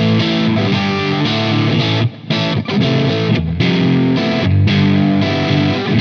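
GrassRoots G-Snapper 24/M electric guitar played with overdrive: distorted strummed chords, cut off briefly about two seconds in before the playing resumes.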